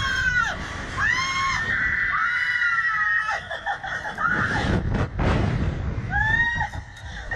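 Two women screaming on a Slingshot reverse-bungee ride as it flings them: high-pitched screams, one held for about two seconds, with a shorter scream near the end. Rushing wind hits the ride-mounted microphone in between.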